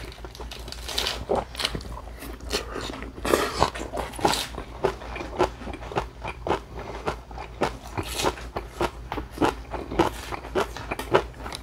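A person chewing food close to the microphone: wet, crunchy mouth sounds with many sharp irregular clicks, a few a second.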